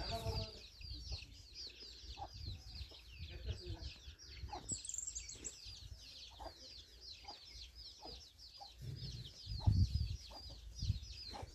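Free-ranging country chickens clucking, over a steady run of high, quick chirps repeating several times a second. A brief low rumble comes about nine to ten seconds in.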